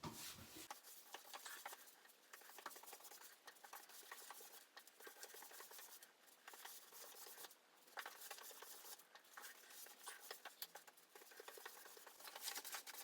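Wallpaper glue for glass fiber wall covering being spread over a wall: a faint, wet, crackly scratching with many quick irregular ticks as the applicator works the thick layer of glue.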